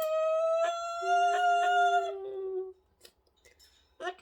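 Pet cockatoo giving one long, steady, held call of about two and a half seconds, with a second lower tone joining it about a second in and a few short clicks over the top. Another loud held call begins at the very end.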